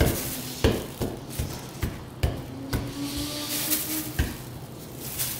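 Kitchen utensils and dishes knocking on a hard work surface during cooking: about six sharp, irregular knocks and clacks, over a faint steady low hum.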